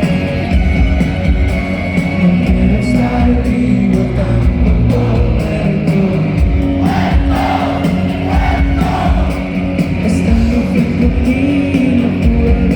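Rock band playing live, with dense drums and bass under the guitars, and voices singing over it around the middle.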